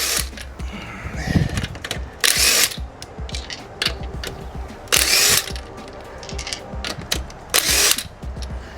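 Cordless impact wrench run in short bursts, four of them about two and a half seconds apart, with lighter mechanical clicking between, spinning lug nuts on the wheel.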